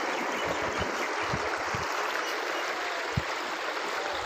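Steady rush of water pouring from a running tube-well outlet into an irrigation channel, with a few soft low thumps, the clearest about three seconds in.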